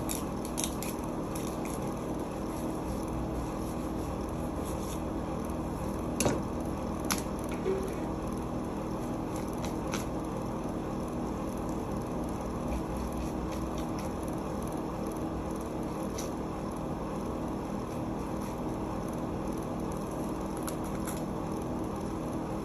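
Steady low machine hum in the kitchen, with a few light clicks and knocks from a knife and fish being handled on a cutting board, the sharpest about six seconds in.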